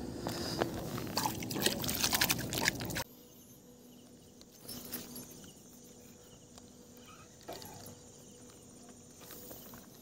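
Close rustling and a rapid run of clicks and knocks for about three seconds, which cut off suddenly to a faint outdoor quiet with a few soft ticks.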